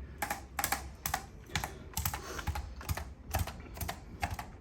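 A regular run of sharp clicks, about two a second, from a handheld chiropractic adjusting instrument being fired repeatedly over the patient's back.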